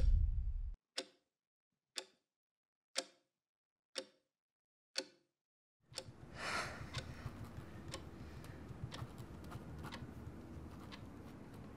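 Wall clock ticking once a second: five sharp ticks over dead silence, then the ticking goes on more faintly under room tone from about six seconds in. At the very start a loud sound dies away and cuts off abruptly.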